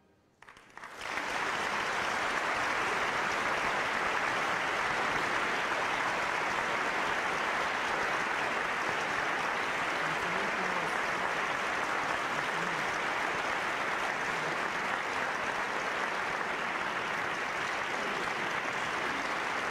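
A concert hall audience applauding: the clapping breaks out about a second in and holds steady and full.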